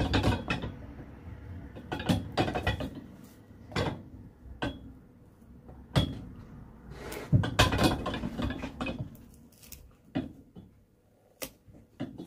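A flat-bladed prying tool being levered between a shoe's stacked fibreboard heel block and the sole: irregular clusters of cracking, creaking and scraping as the heel block is forced off, thinning to a few sharp clicks near the end.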